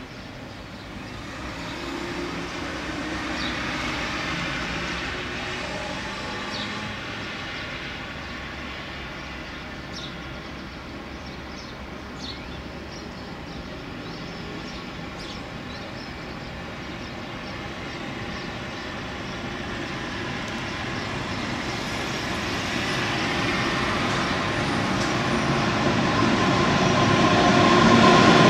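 Freight train hauled by an E.652 electric locomotive approaching, its running noise growing steadily louder over the second half until the covered wagons roll past close by near the end.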